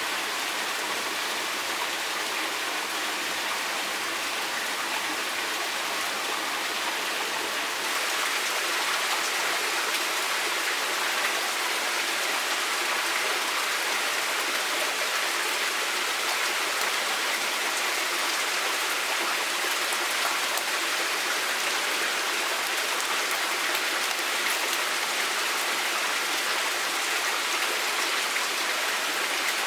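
Steady rushing of running water, an even hiss with no breaks, a little louder and brighter from about eight seconds in.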